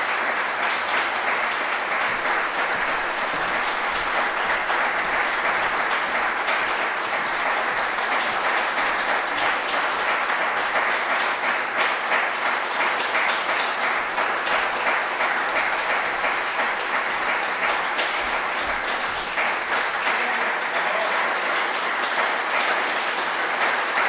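Concert audience applauding steadily: sustained, dense clapping after a performance.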